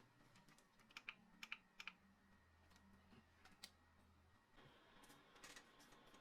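Near silence with a few faint small clicks and taps, a quick cluster of them about a second in and one more near the middle. A faint steady hiss comes in later.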